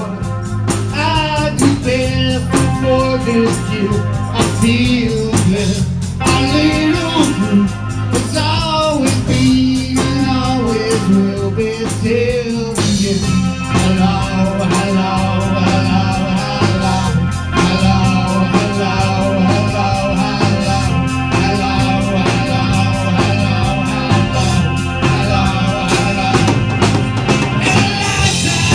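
Live rock band playing: electric guitar, bass guitar, drum kit and keyboard through amplifiers, with a lead line bending in pitch over the first dozen seconds.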